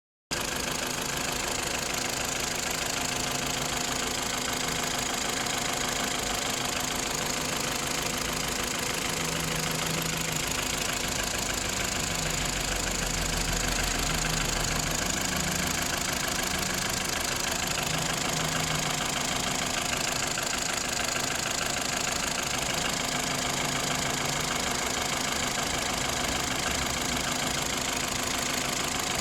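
Car engine idling cold with a steady, fast knocking from inside it, a knock that shows when the engine is cold.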